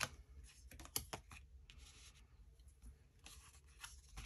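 Tarot cards being handled and laid out: a few sharp taps about a second in, then soft sliding swishes of card on card and cloth, all faint.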